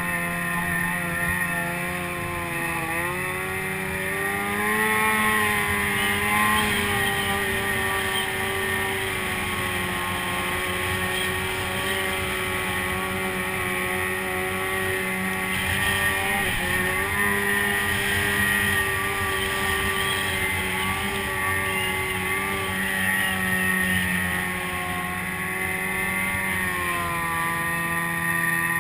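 Snowmobile engine running steadily under way, its pitch dipping and rising again about three seconds in and once more about halfway through.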